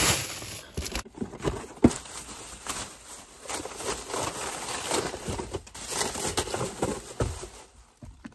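Thin plastic shopping bag rustling and crinkling irregularly as snack packages and trash are pushed into it, with a sharp knock about two seconds in.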